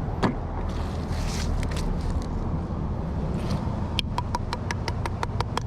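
Steady low rumble of passing road traffic. There are rustling scrapes early on, and near the end comes a quick, even run of about ten sharp clicks.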